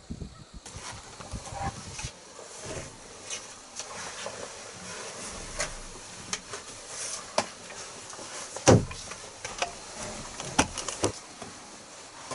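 Handling noise of a camera in a hunting blind: scattered small clicks and knocks, with one louder thump about nine seconds in.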